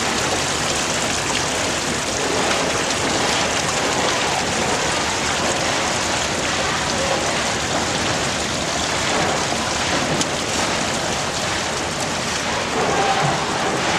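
Shaking table (gravity concentrator) running, with wash water and ore slurry rushing and splashing steadily over and off its deck.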